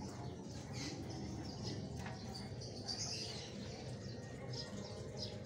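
White feeder mouse squeaking, several short high-pitched squeaks, as a reticulated python bites and constricts it.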